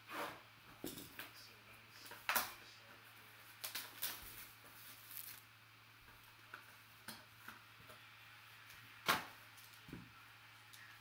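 Plastic shrink wrap on a trading-card box being slit and torn off, then the box opened and a black plastic-wrapped pack handled: a scatter of sharp crinkles and tearing snaps, loudest about two seconds in and again about nine seconds in.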